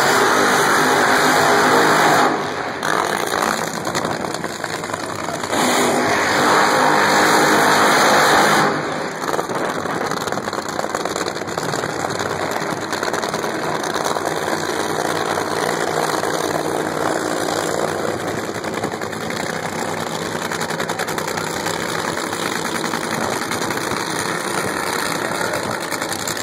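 Nitro Funny Car engines (supercharged, nitromethane-burning V8s) running at the starting line: two loud bursts of hard revving, the first about two seconds long at the start and the second about three seconds long a few seconds later, then a steady, rough running at a lower level.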